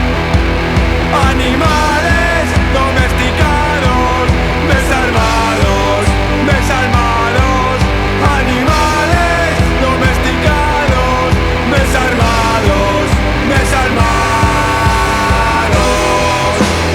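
Punk/post-punk rock band playing a loud, driving song with a steady beat and a wavering melody line on top.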